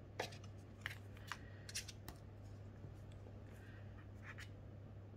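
Matte oracle cards being flipped and laid one on another: a quick run of short card slaps and slides in the first two seconds, then two fainter ones later, over a low steady hum.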